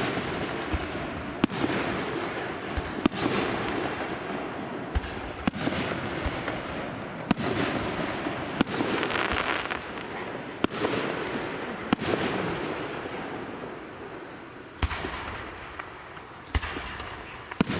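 Aerial firework shells bursting one after another, about nine sharp bangs spaced one to three seconds apart, each followed by a long fading tail of crackle.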